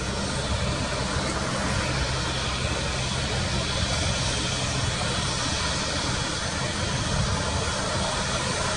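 Airbus A350's Rolls-Royce Trent XWB turbofan engines running steadily as the airliner taxis: an even rushing jet noise over a low hum.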